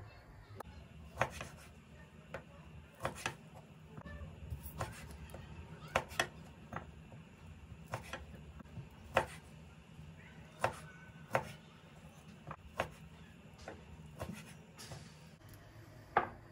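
Sharp knocks at an irregular pace, roughly one a second, over a low steady hum.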